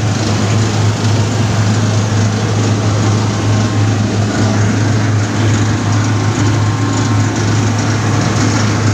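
Motor-driven clove threshing machine running steadily: a constant low hum under an even rushing noise.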